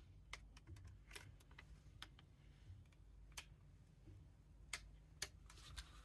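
Faint, scattered clicks and taps, about seven over six seconds, as a weapon light is handled and fitted onto the accessory rail of a pistol chassis.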